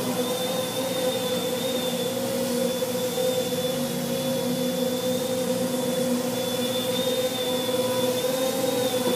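Custom-built quadcopter's electric motors and propellers running in flight, a steady hum made of several held pitches that waver slightly.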